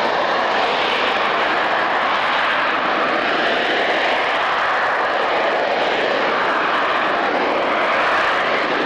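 Harrier jump jet's Rolls-Royce Pegasus turbofan flying past in a climbing display pass: a steady, loud jet roar whose tone slowly sweeps up and down.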